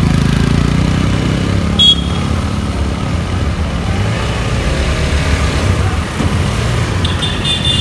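Motorcycle engine running steadily amid street traffic. A brief loud high-pitched tone sounds about two seconds in, and a few high tones sound together near the end.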